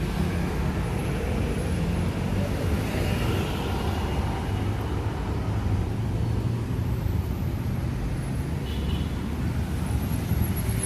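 City street traffic: a steady, continuous rumble of car and bus engines passing.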